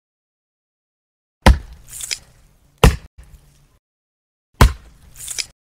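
Three heavy whacks about a second and a half apart, each dying away quickly. After the first and last whack a short swish swells up and cuts off sharply, with dead silence before and after.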